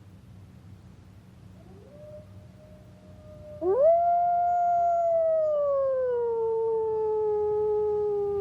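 Wolf howling: a faint howl about two seconds in, then a loud, long howl that rises quickly, holds, and slides slowly down in pitch before cutting off near the end.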